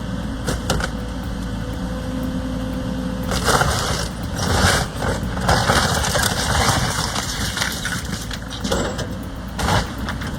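Heavy demolition machine's diesel engine running steadily, with crunching and breaking of a structure being torn down from about three seconds in.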